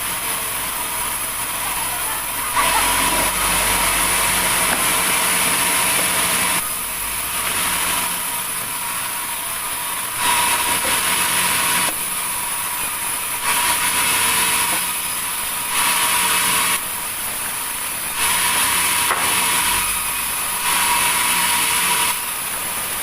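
Sawmill saw running steadily, with about seven louder, harsher stretches of one to four seconds as the blade cuts through wood.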